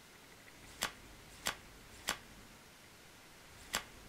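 Playing cards snapped down one at a time onto a table: three sharp clicks about 0.6 s apart, then another near the end.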